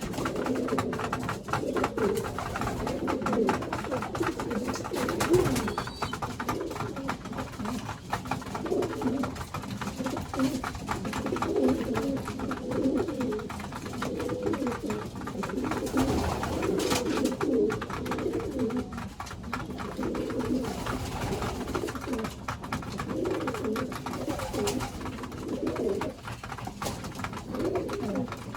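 Domestic pigeons cooing continuously, several birds overlapping.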